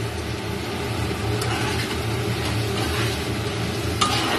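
Metal spatula stirring and scraping vegetables frying in a kadai, with a steady sizzle and a few light scrapes, and a sharper clink of metal on the pan near the end, over a steady low hum.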